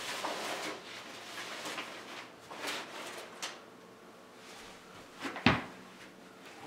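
Handling of a hardback book and loose papers on a carpeted floor: several short rustling, shuffling strokes, then one sharp thump about five and a half seconds in, the loudest sound.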